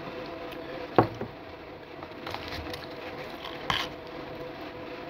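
A drinking glass set down on a table with a sharp knock about a second in, a smaller knock just after, then a few soft clicks and a brief rustling noise near the end, over a steady faint hum.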